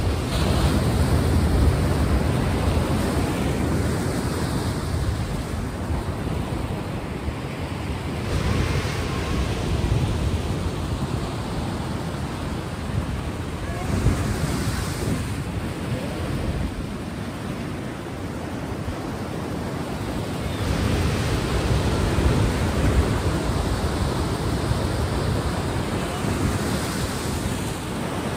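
Ocean surf: waves washing in and breaking, the noise swelling and falling back every several seconds.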